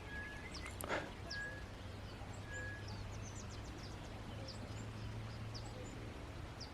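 Faint bird calls in the bush: a short high whistle repeated about once a second over the first three seconds, among scattered quick high chirps, with a low steady hum beneath and a single click about a second in.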